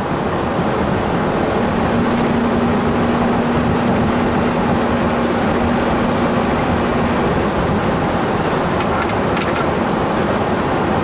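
Steady road noise heard from inside a moving vehicle cruising on a highway, with a faint steady hum that comes in about a second and a half in and fades away a few seconds later.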